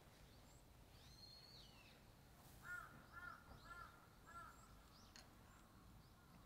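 A crow cawing four times in a row, about half a second apart, faint. A small bird gives a thin whistle just before.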